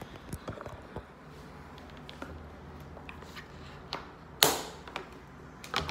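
Packaging of a rubber dog toy being handled and cut open: scattered small clicks and taps of card and plastic, then one short sharp rip about four and a half seconds in.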